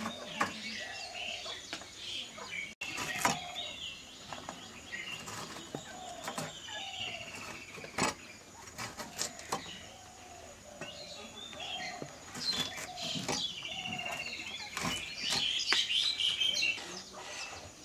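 Small birds chirping busily, loudest in the last third, with a hen clucking now and then. Over it come short, sharp clicks of a curved blade cutting through bitter melon.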